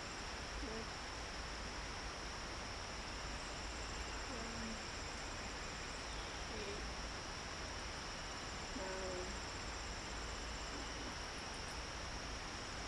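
Evening insect chorus of crickets: a steady, high-pitched trilling that carries on without a break, over a faint background hiss.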